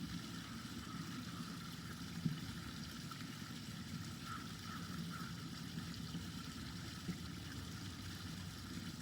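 Small backyard waterfall running, a steady wash of falling water.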